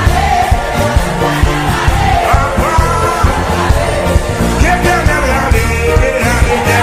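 Gospel song: a voice sings held, wavering notes over a band with a steady bass beat.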